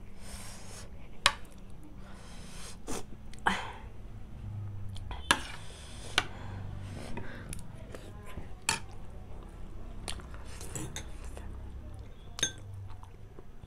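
Metal fork and spoon clinking against a dinner plate while cutting and picking up momos, with a handful of sharp clinks spread out over a low steady hum, and chewing in between.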